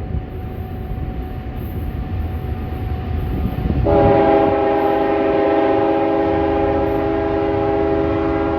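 Locomotive air horn blowing one long blast, a chord of several steady tones, starting about four seconds in over the low rumble of the train.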